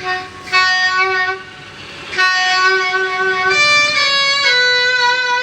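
Casio CT-X870IN electronic keyboard playing held notes in a sustained, horn-like voice, the pitch changing a few times at intervals of about a second.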